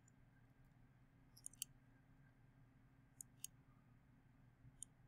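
Faint computer mouse button clicks, five in all, mostly in quick pairs, over a near-silent room.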